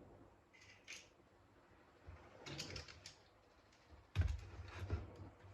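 Light clicks and taps of small laptop parts being handled and pressed apart by hand, with a heavier knock about four seconds in.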